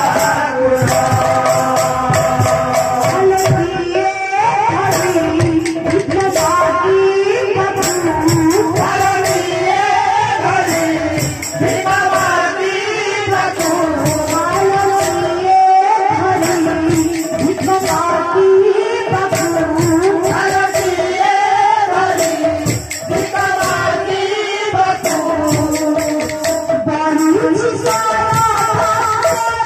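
Live devotional kirtan music: a woman singing a bhajan melody, backed by a steady rhythm from two-headed barrel drums (mridanga) and small jingling hand cymbals.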